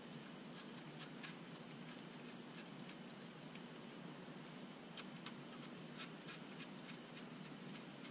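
A few faint clicks and taps as connecting rod caps and nuts are fitted by hand at the crankshaft of a Detroit 353T engine block, with two sharper taps about five seconds in, over a steady faint hiss.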